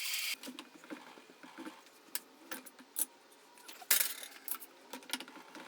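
Light clinks, clicks and knocks of metal pieces being handled in a workshop, with one louder knock about four seconds in. A steady hiss cuts off just after the start.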